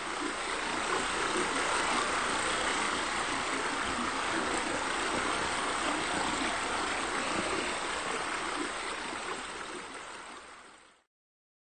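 Steady rushing, splashing running water, like a stream or a water feature. It swells over the first second and fades out near the end.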